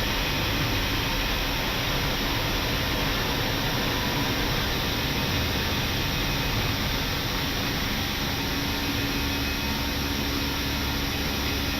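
Steady flight-deck noise of an Airbus A319 climbing out just after takeoff: an even rush of airflow and jet engine noise with a faint steady hum beneath it.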